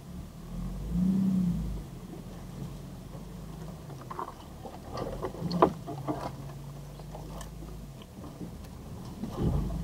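Jeep TJ engine running at crawling speed, heard from inside the cabin, rising briefly about a second in and again near the end. From about four seconds in, tree branches scrape, click and snap against the body, the loudest a single sharp crack midway.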